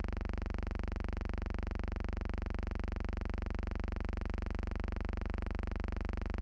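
Steady low hum with a buzz, pulsing rapidly and evenly and never changing: a constant noise on the archival soundtrack rather than sound from the scene.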